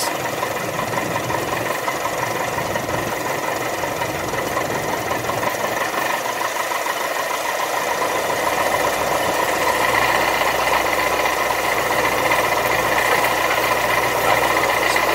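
Light single-engine airplane's piston engine and propeller running at low power, heard from inside the cockpit during the landing rollout and taxi. A steady hum, with a deeper low drone joining about halfway through.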